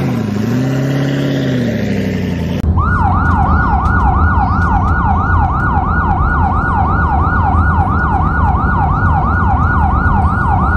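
Emergency-vehicle siren on the fast yelp setting: a rising wail repeating about two and a half times a second over a heavy low road rumble. It cuts in abruptly about two and a half seconds in, after a low sound that dips and rises in pitch.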